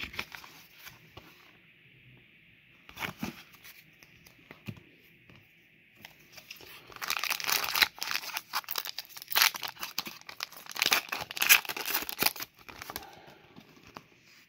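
A Pokémon Scarlet and Violet booster pack's foil wrapper being torn open and crinkled by hand, loudest for several seconds from about halfway through. A couple of light knocks come before it.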